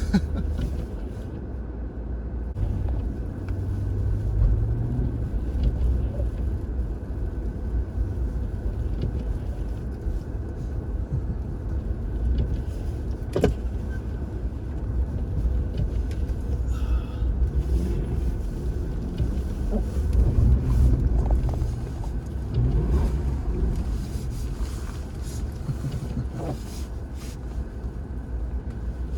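Car engine running with road and snow noise, its revs rising briefly several times in the second half. There is a single sharp click about halfway through.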